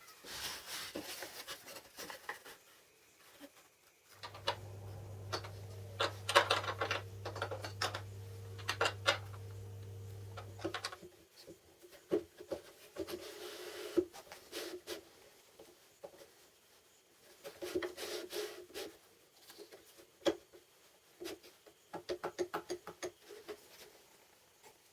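Scattered clicks, taps and knocks of metal and wooden parts being handled on a workbench. A steady low electric hum runs for about six seconds, starting about four seconds in.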